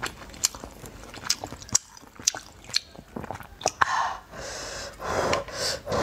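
Close-miked chewing of soft, wet food from a broth, with many sharp wet mouth clicks. In the last two seconds come three longer breathy sounds, each about half a second.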